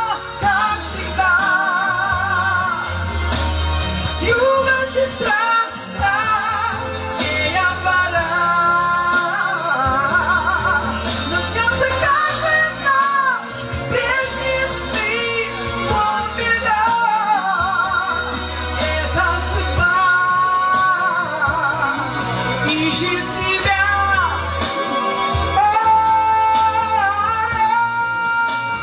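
A woman singing long held notes with wide vibrato over a musical accompaniment with a deep bass.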